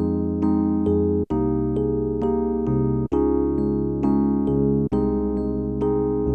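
Background music on a keyboard in an electric piano sound: held chords with notes struck over them, cut by a brief dropout to silence about every two seconds.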